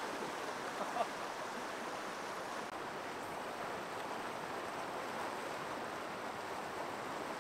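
Shallow river rushing steadily over rocks and a riffle. A short faint chirp about a second in.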